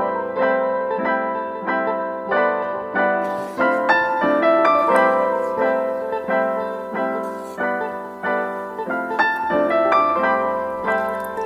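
Background piano music, a gentle melody of struck notes in an even rhythm.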